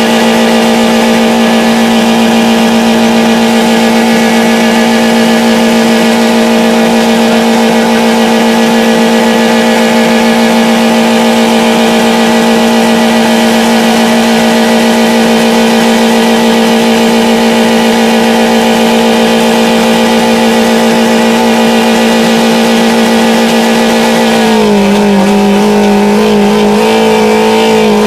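Car engine held flat out at a steady high pitch while being deliberately run to blow it up. Near the end the pitch drops a little and the note turns rough and wavering.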